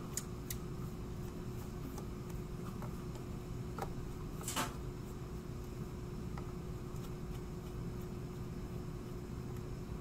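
Steady room hum with a constant low tone. Over it come a few faint clicks and taps of a small precision screwdriver working the bottom-plate screws of a mini PC, with one slightly louder tap about halfway through.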